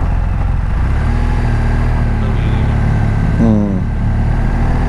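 Motorcycle engine running steadily while riding, with a slight change in engine note about a second in. A short voice-like sound cuts in briefly about three and a half seconds in.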